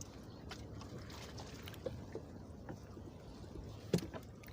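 Water lapping against a small fishing boat's hull over a low steady rumble, with scattered light knocks and one sharper knock about four seconds in.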